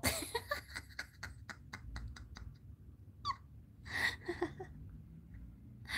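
A quick run of light clicks or taps, a dozen or more, over the first two and a half seconds. Then a short high squeak about halfway through, and faint voices a little after.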